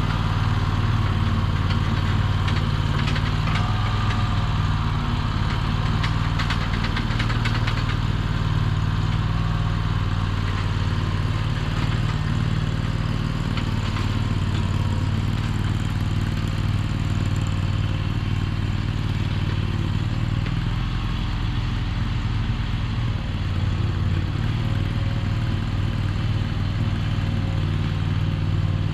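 Small engine of a Chinese mini skid steer running steadily at a low, even speed.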